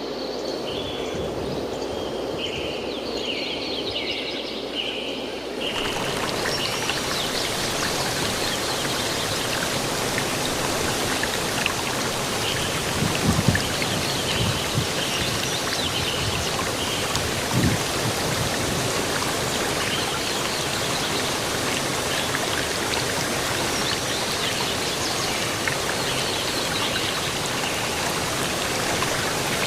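Water of a waterfall rushing steadily. For the first few seconds the rush is softer, with birds chirping over it, until it switches abruptly to a louder, fuller rush. There are a couple of low thumps in the middle.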